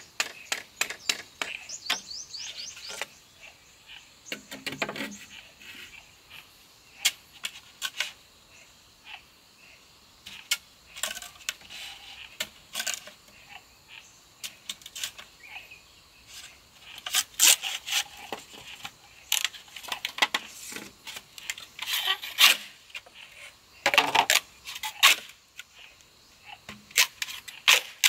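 Large knife cutting and splitting green bamboo poles: irregular sharp clicks and cracks of the blade on the bamboo, coming in thicker clusters in the second half.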